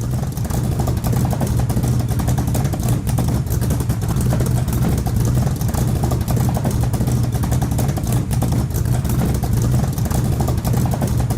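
A vehicle engine running steadily and loudly, with a fast, even pulsing exhaust beat.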